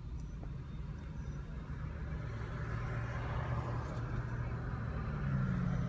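A road vehicle going by: a low engine hum and tyre hiss that grow steadily louder, the engine tone strengthening near the end.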